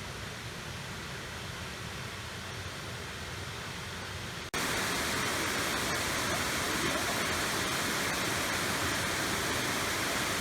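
Waterfall on a creek rushing steadily, with no pitch or rhythm. It jumps suddenly louder and brighter about four and a half seconds in.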